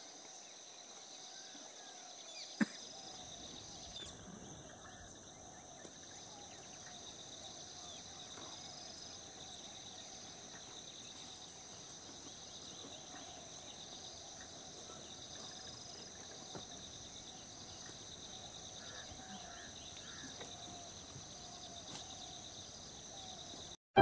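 Steady droning of insects at several fixed high pitches, with faint scattered bird chirps beneath. A single sharp click sounds about two and a half seconds in.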